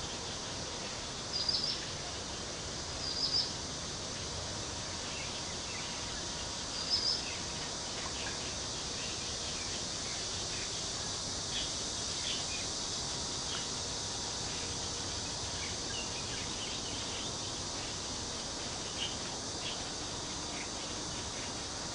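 A chorus of cicadas buzzing in a steady, high-pitched drone. Three short high chirps stand out in the first seven seconds, with faint scattered ticks later on.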